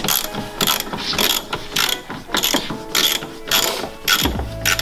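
Hand ratchet wrench clicking in repeated short strokes, about two to three a second, as a long bolt is backed out.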